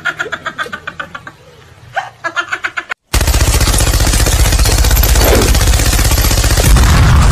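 A short cartoon laugh, then after a brief silence about three seconds in, a long, continuous burst of very rapid machine-gun fire that is the loudest part.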